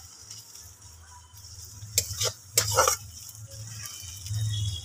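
Metal spatula scraping and knocking against a steel wok, with a few sharp scrapes about two to three seconds in, as onions, ginger and garlic fry with a faint sizzle. A low steady hum runs underneath.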